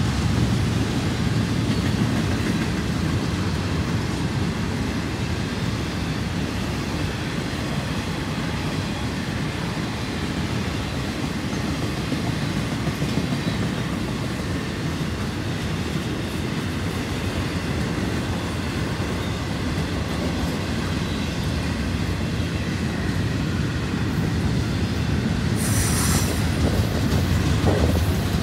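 Florida East Coast Railway freight train rolling past, a steady rumble of wheels on rail, with a brief sharper, higher noise about two seconds before the end.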